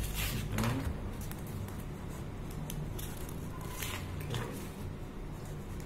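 Ballpoint pen scratching on paper as a signature is written: a few short scratches, near the start and around four seconds in, over a steady low hum.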